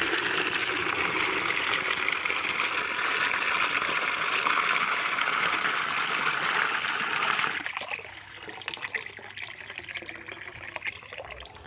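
Water gushing from a pipe spout into a plastic bucket as it fills. About eight seconds in the gush drops off to a quieter, uneven splashing.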